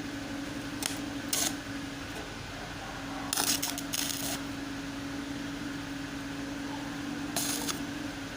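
Several short metallic clinks and scrapes, loudest in a cluster around the middle, over a steady hum.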